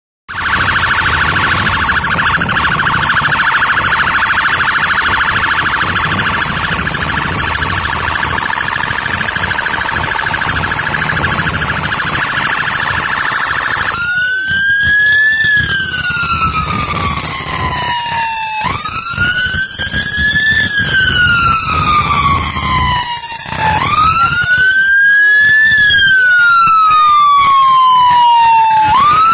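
Electronic police siren, in a rapid high warble for about the first half, then switching to a slow wail that rises and falls about every five seconds.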